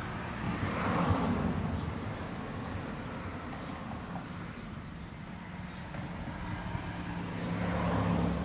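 Road traffic: cars passing with a steady low engine hum. Two passes swell up, one about a second in and one near the end.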